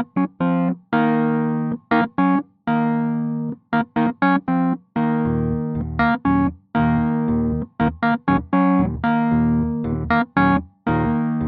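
A software emulation of a Wurlitzer 200A electric piano (the Rhodes Wurli plugin) playing rhythmic chords, some short and detached and some held. Deeper bass notes join about five seconds in.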